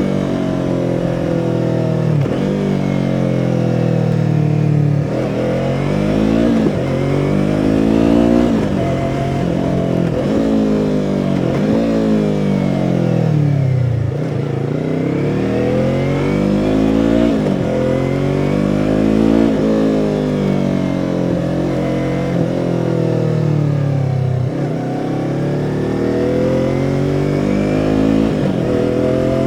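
2017 Yamaha R3's 321 cc parallel-twin engine and exhaust under way, the pitch climbing and dropping again and again with abrupt breaks every couple of seconds, dipping lowest about halfway through before rising again.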